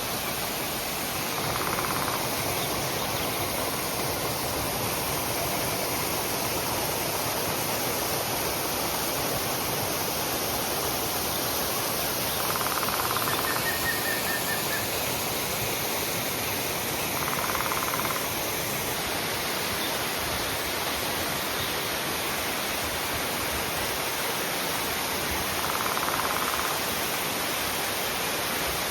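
Waterfall pouring with a steady, even rushing hiss. A few brief swells in the rush come and go every several seconds, and a short run of high chirps sounds about halfway through.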